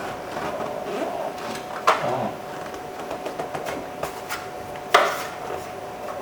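Plastic interior door trim of a Ford Ranger being handled and pressed into place: two sharp knocks about three seconds apart, with lighter clicks and rustling between them, over a faint steady hum.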